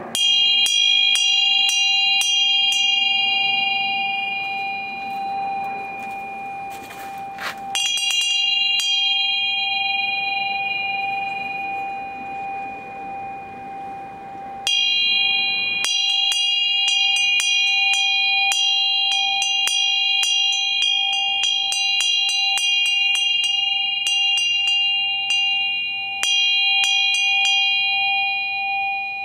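A bell struck about four times, each strike ringing on in a long, steady tone, with many short light ticks in between.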